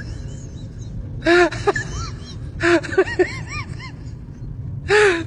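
A baby's crying, in three short bouts of wailing about a second and a half apart, over the steady low rumble of a subway car running.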